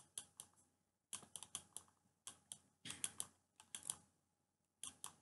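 Faint, irregular clicks and taps of a stylus on a tablet screen as letters are handwritten, coming in small clusters with short pauses between them.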